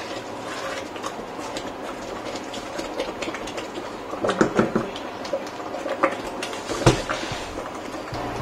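A wooden spoon stirring thick chana dal in a steel cooking pot, scraping and knocking against the pot over the steady popping of the simmering dal. Louder knocks come about four and a half seconds in, and one sharp knock about seven seconds in.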